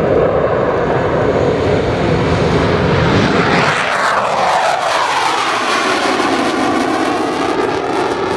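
Twin-engine F/A-18 Hornet fighter jet on its take-off run and climb-out, its engines running with a loud, steady roar. About three and a half seconds in, it passes close by and its whine falls steeply in pitch as it goes away.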